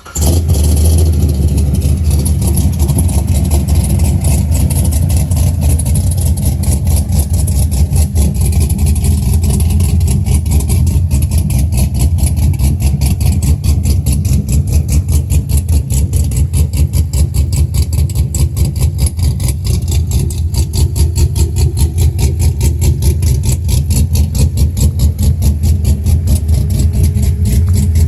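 6th-generation Chevrolet Camaro engine and exhaust, coming in suddenly and loud right at the start, then idling steadily with an even, rapid pulsing.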